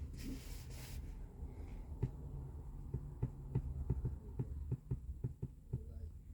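A low steady hum with a run of light, irregular clicks, about two or three a second, starting about two seconds in.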